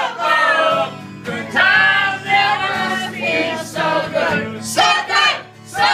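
Several people singing along together to a strummed acoustic guitar, in sung phrases about a second long with short breaks between them.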